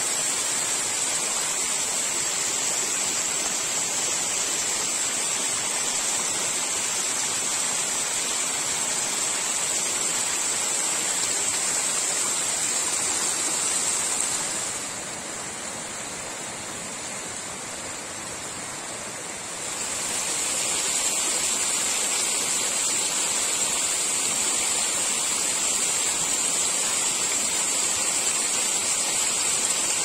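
Snowmelt-fed seasonal waterfall splashing over mossy rock ledges: a steady rush of falling water. About halfway through, it gives way for some five seconds to the softer, quieter running of a shallow rocky stream, then the louder waterfall rush returns.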